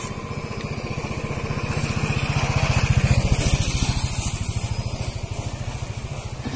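A small engine passing by, a rapid, even putter that grows louder to a peak about three seconds in and then fades away.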